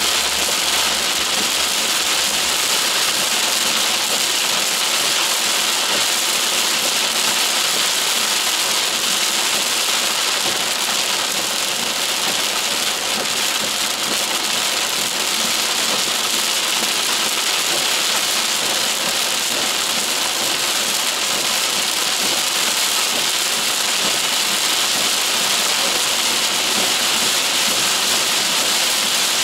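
Torrential rain pelting a car's roof and windshield, heard from inside the cabin as a steady, dense hiss.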